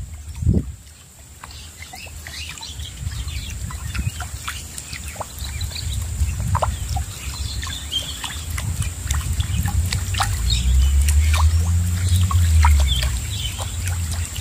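A surface lure being pulled across calm water, making small gurgles, drips and splashes in quick uneven spurts. A low rumble grows louder about two-thirds of the way in.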